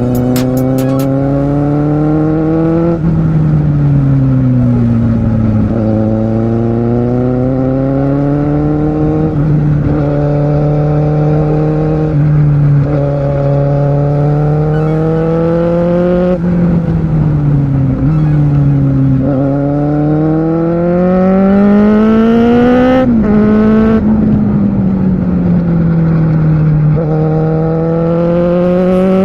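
Kawasaki Z750R inline-four motorcycle engine heard on board while riding, its pitch rising under acceleration and falling off the throttle, with several gear changes stepping the revs. A hard pull about twenty seconds in ends with a sudden drop in revs at a shift, over steady wind and road noise.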